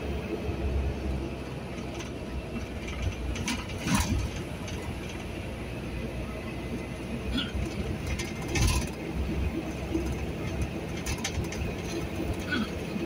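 Steady engine and road rumble heard inside the cab of a large vehicle on the move, with a few sharp rattles, loudest about four seconds in and near nine seconds.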